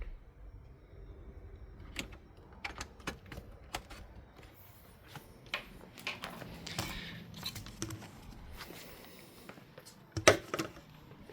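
Scattered clicks and knocks of hard plastic parts being handled, with one much louder knock near the end.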